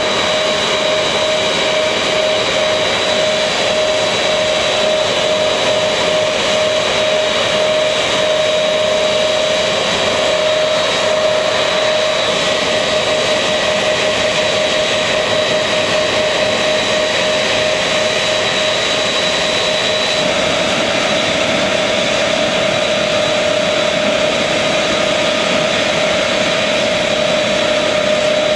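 Lockheed C-5 Galaxy's turbofan engines running on the ground as the aircraft taxis: a steady, loud jet roar with a continuous high whine on top.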